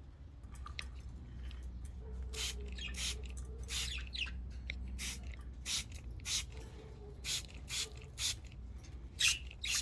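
Hand spray bottle squirting warm water in short bursts, a dozen or so at irregular intervals, with pet budgerigars chirping now and then.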